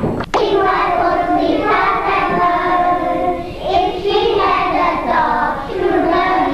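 A class of young children singing together in unison. There is a sharp click about a third of a second in.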